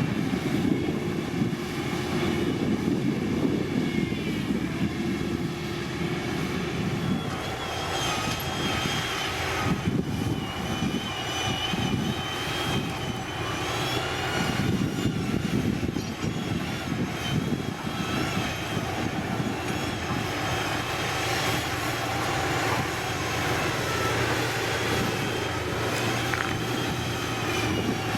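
Heavy diesel construction machinery running steadily, such as a motor grader or road roller at work, with a high wavering whine over the engine from about eight seconds in.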